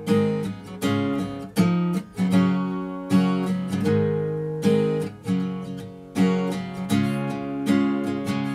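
Acoustic guitar strumming chords with no singing. Each chord is struck roughly once or twice a second and left to ring.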